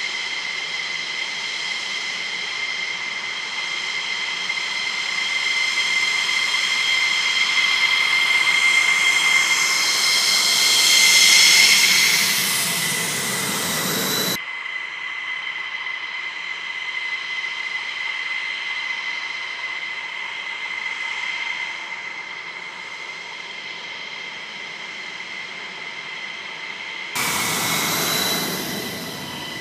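F-16 fighter's jet engine running at taxi power, a steady high-pitched whine over a rushing jet noise. It grows louder toward the middle, drops suddenly to a quieter whine about halfway through, and turns abruptly louder again near the end.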